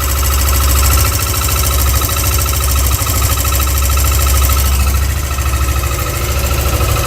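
Carbureted motorcycle engine idling steadily, with no fuel-injector buzz to be heard.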